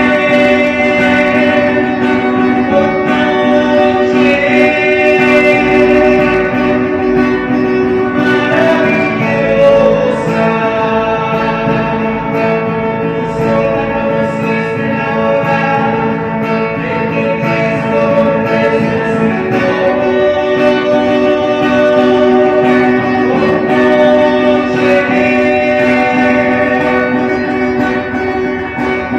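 Music: guitar playing under a sustained, held melody line.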